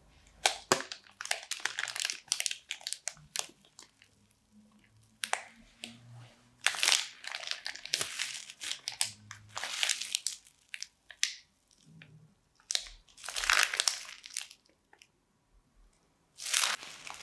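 Clear plastic bag crinkling and crunching as a hand squeezes a slime-filled mesh scrub sponge inside it, in irregular bursts with short pauses between squeezes.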